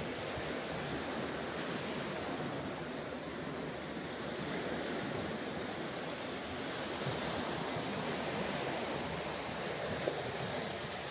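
Sea surf washing onto a beach, a steady rush of waves, with one small click near the end.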